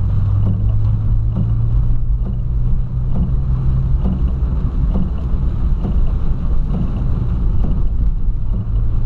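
Cabin sound of a 2008 Volkswagen Polo sedan driving on a wet road in heavy rain: a steady low drone of engine and tyres, with faint irregular taps over it.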